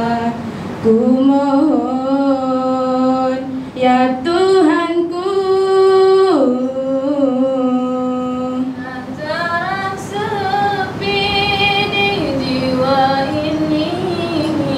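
A girl singing a slow Malay song into a microphone, drawing out long, wavering held notes that glide from pitch to pitch.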